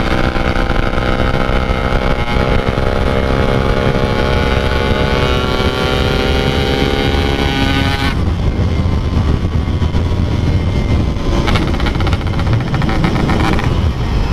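Two-stroke motorcycle engine, a Yamaha RX-King, riding under load with its pitch climbing steadily for about eight seconds, then the note changes abruptly to a rougher, noisier running.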